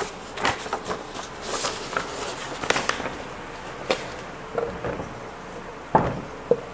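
Dry-erase marker writing on a whiteboard: irregular light taps of the tip against the board, with a couple of brief squeaks.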